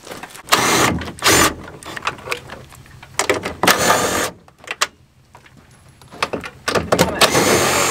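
Cordless power driver running in three short bursts of about a second each, spinning off the mounting nuts of an old truck tow mirror through the door.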